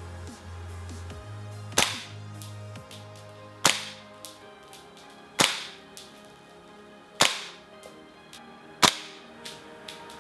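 VFC MP5 SD3 gas blowback airsoft rifle on green gas, fired five times in semi-auto, about one shot every two seconds. Each shot is a sharp crack with a brief ring after it.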